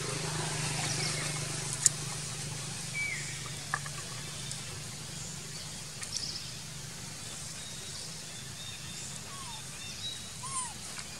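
Outdoor ambience: a steady low hum under a few short chirping calls from birds, with a sharp click about two seconds in and a softer one near four seconds.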